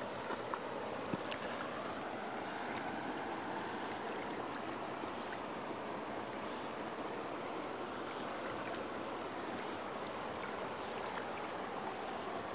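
Steady rushing of flowing river water, with a few faint high chirps near the middle.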